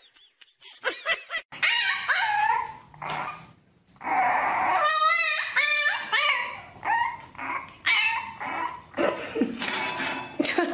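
Dogs whining and yipping in high, wavering cries. A few cries come in the first seconds, then after a short break about four seconds in, a puppy keeps up a long run of whines and yips.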